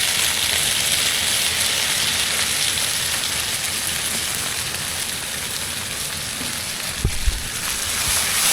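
Chicken legs sizzling steadily in a frying pan, just after a splash of soy sauce. There is a brief low thump about seven seconds in.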